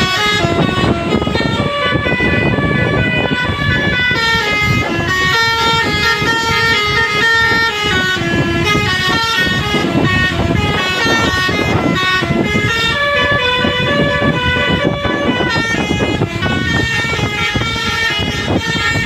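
Tour bus's telolet multi-tone horn, a Basuri-type, playing a fast melody whose notes change several times a second, over a low rumble.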